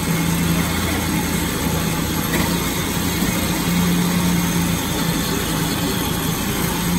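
Flatbed tow truck's engine idling, a loud, steady low hum that does not change in pitch.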